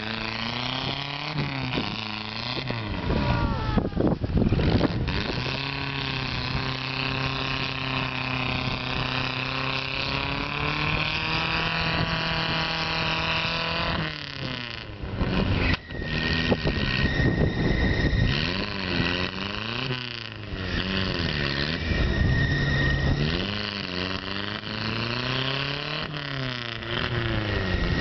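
Truck engine revving hard while bogging through deep water and mud: held at high revs for several seconds, then revved up and down over and over, about every two seconds. Bursts of splashing water and mud come through now and then.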